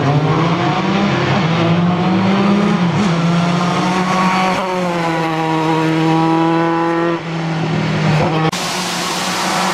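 Single-seater formula race car accelerating hard from the start line, its engine note climbing and dropping back with each quick upshift as it pulls away. About a second before the end the sound cuts abruptly to a race car engine heard further off, with more noise around it.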